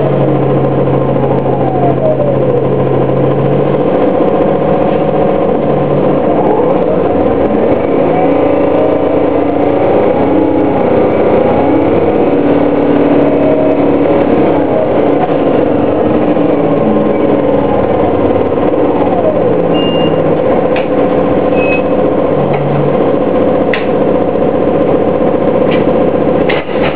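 2009 Orion VII NG hybrid bus running: its Cummins ISB straight-six diesel drones steadily under the whine of the BAE HybriDrive electric drive, which glides up and down in pitch as the bus speeds up and slows. Two short high beeps come a couple of seconds apart past the middle, and a few clicks follow near the end.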